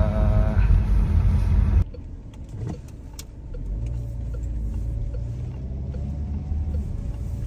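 Car cabin noise while driving: a steady low road-and-engine rumble. It is loud at first, drops suddenly a couple of seconds in, then carries on quieter, with a single click about three seconds in.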